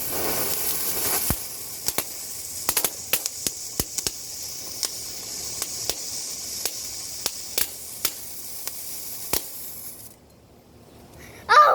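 Small fountain firework spraying sparks with a steady hiss and scattered sharp crackling pops, burning out about ten seconds in.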